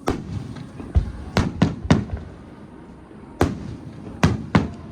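Fireworks shells bursting overhead: about eight sharp bangs at uneven intervals, clustered in two groups, with a deeper thud among them.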